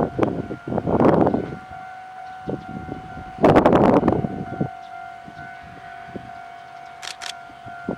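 Gusts of wind buffeting the microphone, loudest about a second in and again around the middle, over a steady high-pitched tone that holds throughout; a few sharp clicks near the end.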